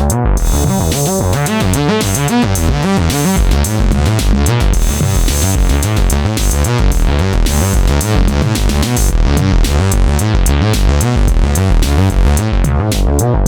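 Behringer K-2 analog synthesizer, an MS-20-style monosynth, playing a fast repeating bass line at 110 bpm. The top end thins out about two-thirds of the way in.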